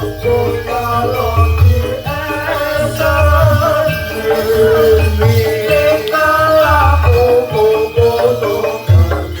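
Loud music with ringing tuned metal percussion and a wavering melody line over low drumbeats, typical of a barongan troupe's accompaniment.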